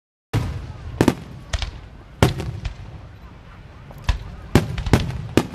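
Fireworks going off: about eight sharp bangs at uneven spacing, each trailing off in a short echo. The sound cuts in about a third of a second in, after a moment of dead silence.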